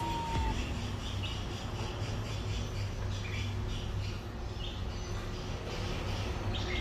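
Young chicks peeping: scattered short, high cheeps, over a steady low hum.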